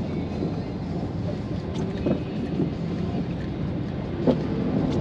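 Steady road and engine noise inside the cabin of a moving car, with a single sharp click about four seconds in.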